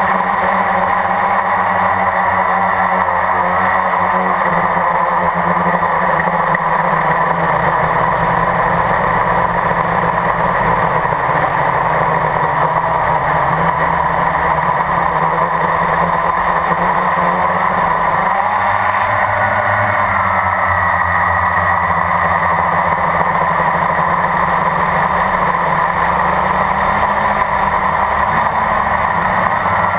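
Blade 350 QX quadcopter's electric motors and propellers droning steadily, heard up close from the onboard camera. The pitch shifts up and down a few times as the throttle changes, most clearly about two-thirds through and near the end.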